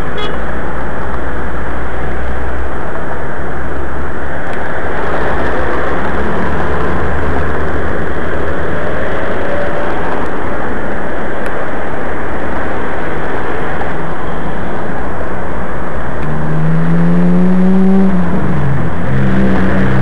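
Steady rushing wind and road noise on the microphone of a camera moving along a city street, with car traffic. Near the end a vehicle engine rises in pitch and then drops away.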